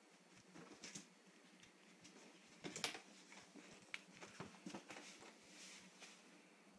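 Near silence with a few faint taps and short scuffles, the loudest cluster about three seconds in.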